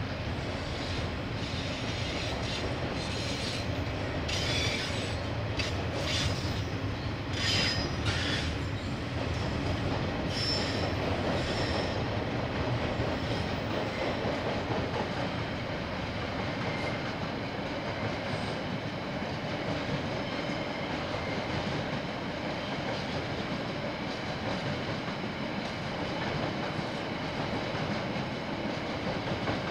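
KiwiRail freight train wagons rolling past on the rails, a steady rumble that carries on as the train moves away. There are several short high-pitched wheel screeches in the first dozen seconds.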